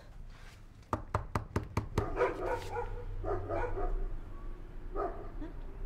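Knuckles knocking on a front door, about six quick knocks, followed by a dog barking a few times.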